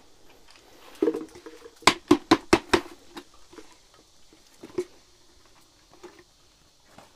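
A plastic container being knocked and shaken to empty frogs into a metal pot of snails: a thud about a second in, a quick run of five sharp knocks about two seconds in, then a few softer thuds.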